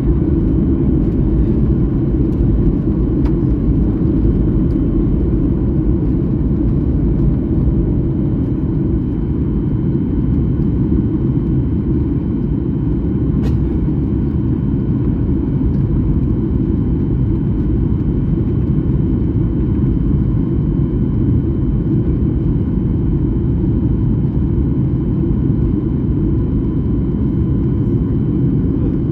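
Steady airliner cabin noise in flight: an even, loud low rumble of engines and rushing air that holds without change.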